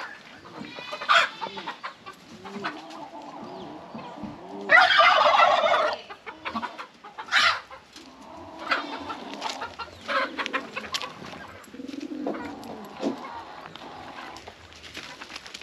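Chickens and turkeys clucking, with short calls about a second in and again near seven seconds, and a loud rooster crow lasting over a second about five seconds in.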